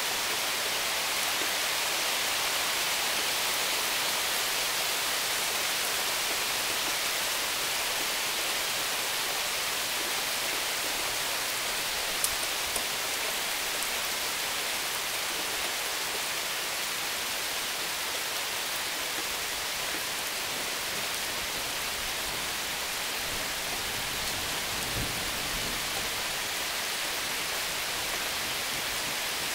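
Steady thunderstorm rain falling on lawns, pavement and a roof, an even hiss, with a couple of sharp ticks about halfway through.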